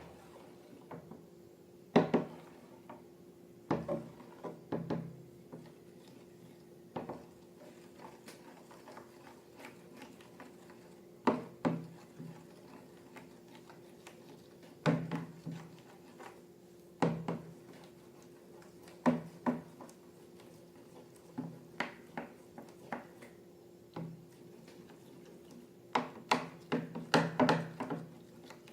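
Objects handled on a hard surface: scattered knocks and clicks every second or two, some in quick clusters, over a steady low hum.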